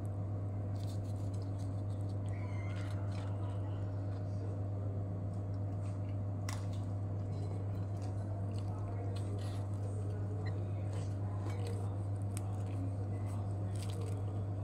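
A steady low electrical hum, with light clicks and rustles of a flatbread being picked up and turned on a ceramic plate.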